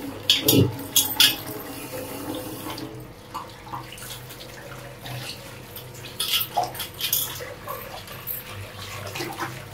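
Kitchen tap running into a sink while dishes are washed by hand, with a few sharp clinks of utensils in the first second.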